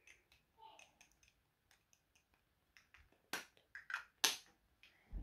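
Small hard-plastic lip balm cases, shaped like popsicles, tapped and clicked against each other for an ASMR sound: a scatter of light plastic clicks, with a few sharper taps about three to four and a half seconds in.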